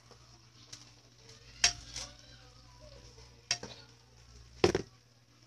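Spatula clanking and scraping against a wok while stirring shrimp: four sharp knocks, the loudest near the end.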